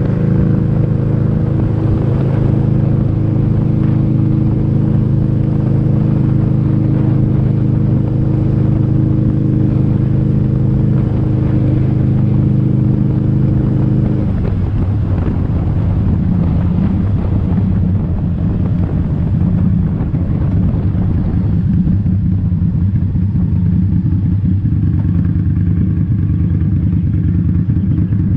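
Motorcycle engine running under way at a steady speed. About halfway through, its note drops lower and turns rougher.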